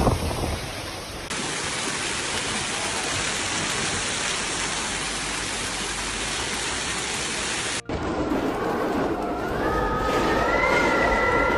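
Storm noise: a steady, dense hiss for several seconds that cuts off abruptly. After the cut a new recording brings a rising whine that settles into a held tone with overtones.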